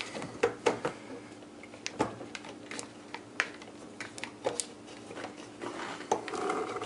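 Scattered light clicks and taps of a brass elbow fitting and its supply hose being handled and lined up on a dishwasher's water inlet valve, over a faint steady hum.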